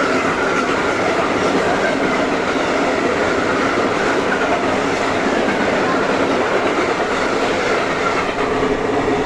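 A train running steadily along the rails, with a constant rolling noise and the clickety-clack of wheels over rail joints. A faint, wavering wheel squeal runs through it.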